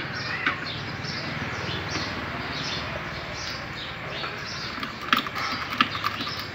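Small birds chirping repeatedly in the background, with a few sharp metal clicks and knocks near the end from the steel boring rig being handled.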